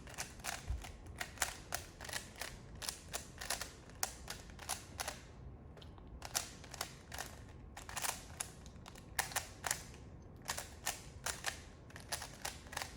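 Plastic Rubik's Cube layers turned fast by hand during a speed solve: rapid, irregular clicking, several clacks a second, with a couple of short pauses.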